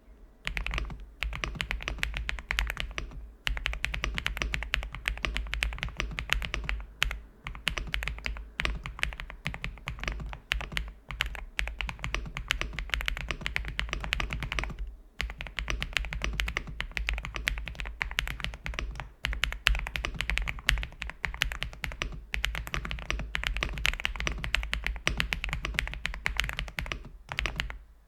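Typing on an F108 mechanical keyboard fitted with Lava switches: a fast, continuous run of key clacks, with short pauses about 3, 7, 15 and 27 seconds in.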